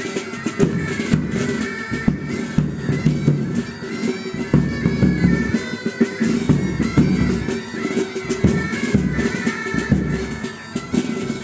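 Pipe band playing: bagpipes sounding a stepping melody over their steady drones, with drums striking throughout.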